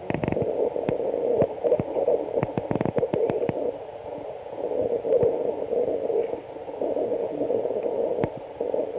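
English Mastiff puppy snuffling and mouthing at a leather shoe on newspaper, a steady snorting-breath noise that swells and fades. Sharp paper crackles and clicks come in a cluster over the first few seconds and once more near the end.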